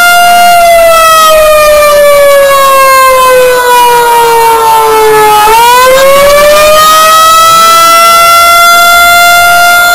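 Outdoor civil-defense warning siren sounding loudly during its monthly test: one steady tone that slowly falls in pitch for about five seconds, then rises back and holds.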